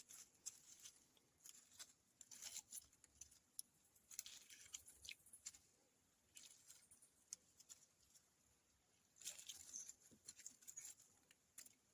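Faint, irregular crackling and snapping of a small kindling fire just lit and starting to catch.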